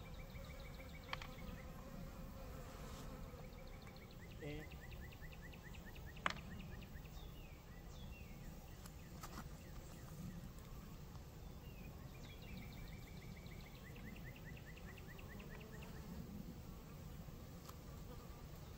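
Honey bees buzzing steadily around an opened hive, some passing close by. A light tick about a second in and a sharper, louder tick about six seconds in.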